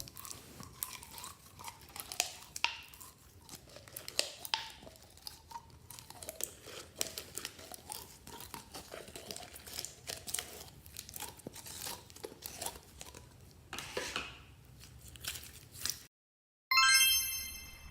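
Quiet crackling and crinkling, a steady scatter of small sharp clicks. Near the end, after a brief cut to silence, comes one bright ringing chime-like note that fades.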